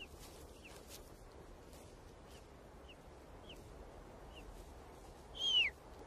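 Golden eagle chicks begging while being fed: thin, high calls that slur downward, repeated every half second or so. About five and a half seconds in comes one louder, longer call.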